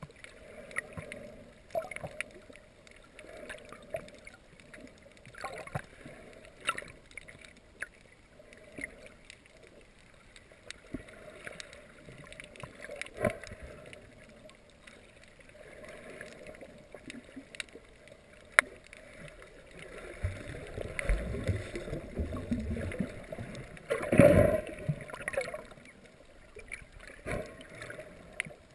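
Underwater sound picked up through a GoPro's waterproof housing: muffled water noise with scattered sharp clicks. A louder gurgling rush swells near the end.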